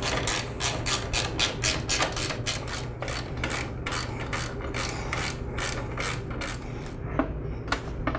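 Ratchet wrench clicking rapidly and evenly, about five or six clicks a second, as it is swung back and forth to tighten the bolts holding a pressure washer pump to its engine. The clicking thins out near the end.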